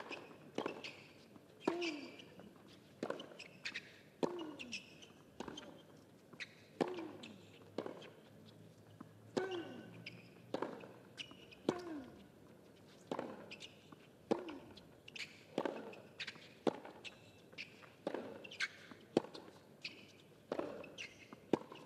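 Tennis rally on a hard court: the ball struck by rackets and bouncing, sharp knocks about once a second in a long, even run.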